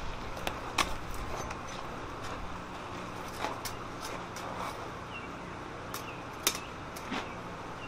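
Scattered light metal clinks and taps of tongs and tools on a hot mild steel swage block sitting on an anvil, with one sharper metal clank about six and a half seconds in, over a steady low hum.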